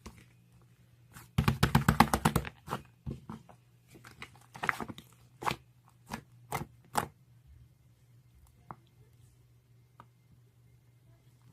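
Slime being pressed and squeezed by hand, giving a dense run of rapid crunchy crackles a little over a second in, then scattered single pops and clicks that thin out.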